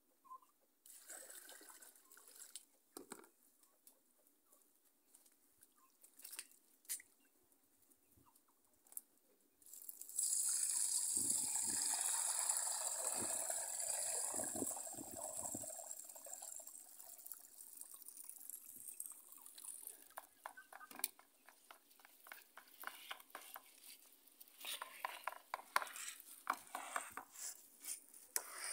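Water poured steadily from a basin through a wooden sieve into a plastic basin for about six seconds, starting about ten seconds in, then tailing off. Near the end come quick repeated rustling strokes of hands rubbing soaked cracked pigeon peas in water to wash off the seed husks.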